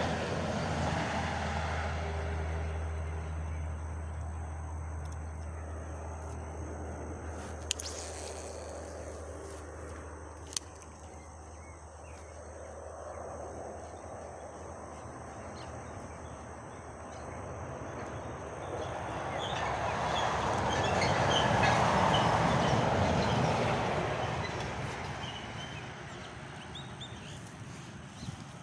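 A dump truck's engine running as it drives past on the road, a low hum that fades away over several seconds. About twenty seconds in, a second swell of noise rises and dies away again.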